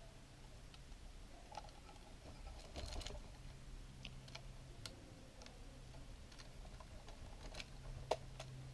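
Scattered light clicks and taps of a Lomography LC-A+ camera body and its parts being turned and handled in the fingers during a repair. There is a cluster of clicks about three seconds in and a sharp click near the end.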